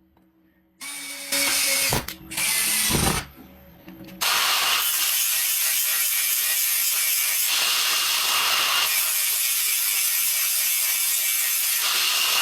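A mechanical rattling, like a tool or small mechanism at work: a few short bursts, then from about four seconds in a steady, continuous rattle.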